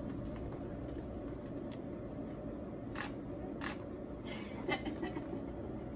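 Steady low room hum with two sharp clicks about half a second apart near the middle, and a brief faint voice shortly after.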